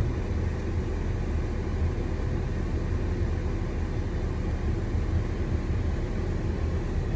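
Ineos Grenadier's engine and drivetrain running in a steady low rumble, heard from inside the cabin, as the 4x4 crawls down a slope in first gear, low range, held in manual mode.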